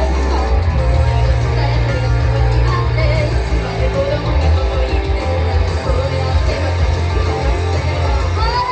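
Loud rock-style music with singing over guitar and a heavy bass.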